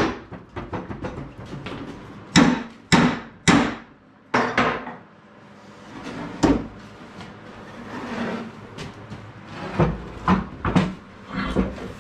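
Hammer blows on a rusted-up arbor press, struck to knock loose a seized part: three hard strikes about half a second apart some two and a half seconds in, one more shortly after, then scattered lighter knocks and clinks near the end.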